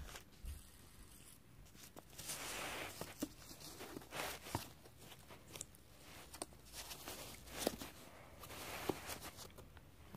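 Faint handling noises as fidget spinners are fitted into a storage case: light clicks and knocks of plastic and metal, with rustling in between.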